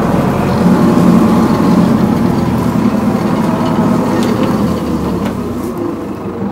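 Zetor 7011 tractor's four-cylinder diesel engine running steadily under load while pulling a tillage implement through oat stubble, heard inside the cab. It gets somewhat quieter toward the end.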